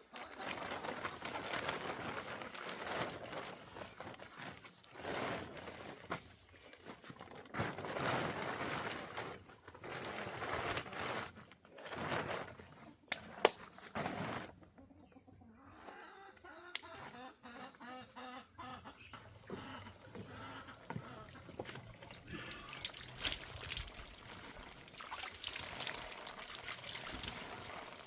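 Chickens clucking, with repeated noisy bursts of splashing or rustling and a sharp click about halfway through.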